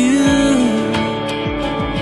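Background music: a slow song with guitar.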